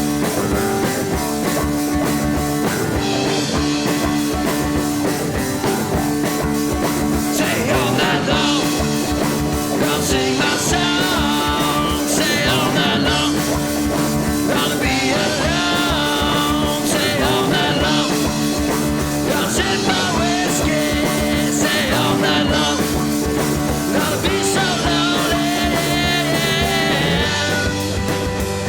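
Rock music with singing, guitar and drums, a steady beat throughout.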